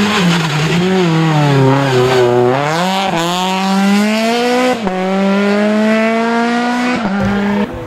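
Rally car engine slowing for a bend, its revs falling for about two seconds. It then accelerates hard, the pitch climbing through the gears with three quick upshifts.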